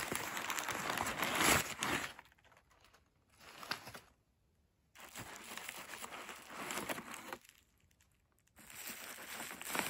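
Crumpled newspaper and bubble-wrap packing crinkling as a gloved hand digs through it and lifts a wrapped object out of a cardboard box. The rustling comes in three spells with short quiet gaps between them.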